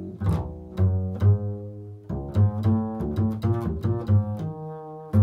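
Upright double bass played pizzicato in a slow improvised line: fingers plucking low notes, each attack followed by a ringing decay. After about two seconds the notes come quicker, roughly three a second.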